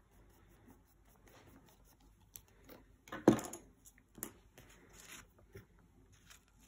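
Paper and art materials being handled on a sketchbook: quiet rustling, a sudden sharp sound about three seconds in that is the loudest, a smaller one about a second later, then rustling as a printed picture card is lifted off the page.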